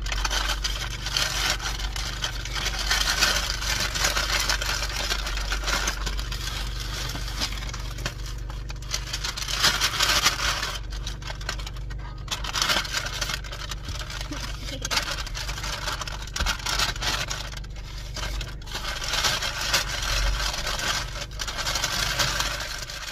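Brown paper bags crinkling and rustling as they are opened, handled and folded, in repeated swells. A low steady hum runs underneath.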